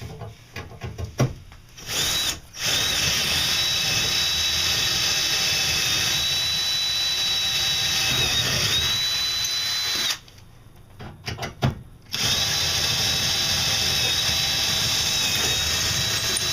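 Power drill boring into wood, in two long steady runs of about eight and five seconds with a high whine, each started after a few short clicks and knocks.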